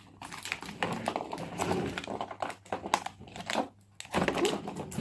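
Plastic packaging crinkling and crackling irregularly as it is handled and pulled off.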